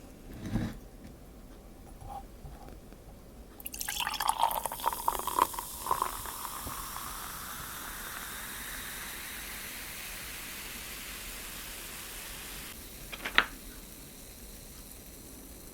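A drink is poured into a glass: a few glugs, then a steady pour whose pitch rises as the glass fills. It stops, and a sharp clink follows about a second later.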